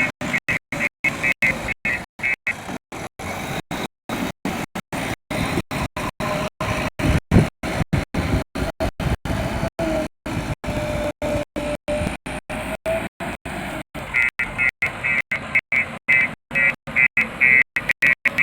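JCB backhoe loader's diesel engine running under working load, its pitch wavering in the middle, with the sound cutting out in constant short stutters. A pulsing high beeping sounds over it at the start and again from about fourteen seconds in.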